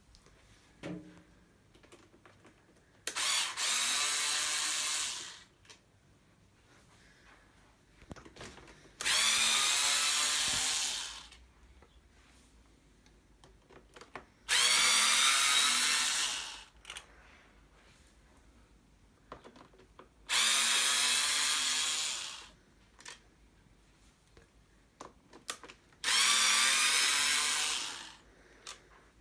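Small cordless power screwdriver whirring in five runs of about two seconds each, a few seconds apart, turning the screws in a golf trolley's plastic handle.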